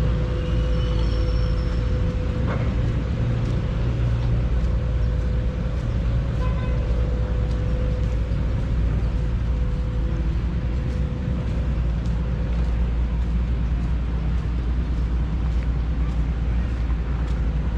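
Hydraulic excavator's diesel engine running steadily at work, a constant low rumble with a faint steady hum above it.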